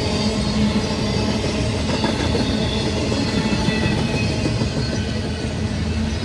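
Intermodal freight train rolling past, a steady noise of wheels on rail.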